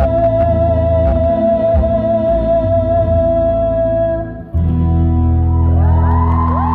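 Music with guitar: one long held note over low sustained chords, a brief dip about four and a half seconds in, then a new chord with rising, sliding tones near the end.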